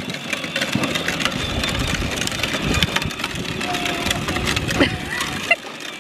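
Battery-powered John Deere ride-on toy tractor driving across wet, gritty asphalt: its plastic wheels roll and crunch with steady crackling and many sharp clicks, over a low rumble.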